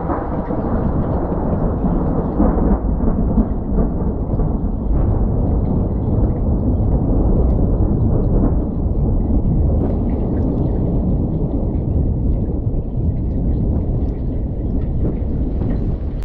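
Thunderstorm: a continuous, loud low rumble with a hiss of rain above it.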